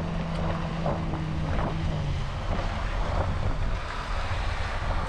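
Wind rumbling on the microphone over the low drone of a passing boat's motor, which fades out about two seconds in.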